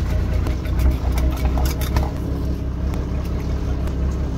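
A fishing boat's engine running steadily with a low hum, with several sharp knocks of a cleaver cutting fish on the deck between about half a second and two seconds in.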